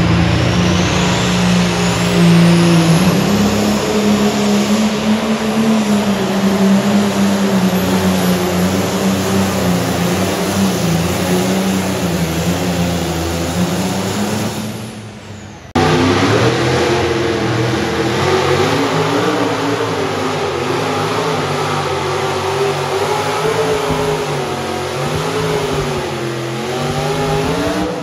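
Modified diesel pulling tractor engine running flat out under load while dragging the weight sled, with a high whine climbing in pitch over the first few seconds. The sound fades and cuts off sharply about halfway through, and a second pulling tractor's engine takes over, its pitch wavering and rising near the end.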